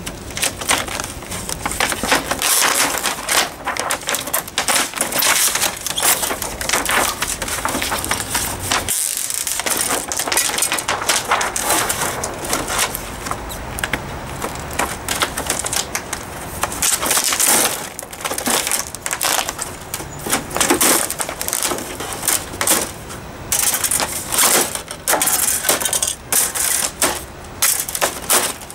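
Thin plastic diffuser and reflector sheets from an LG 47LN5400 LED TV's backlight being peeled up and handled, crinkling and crackling irregularly.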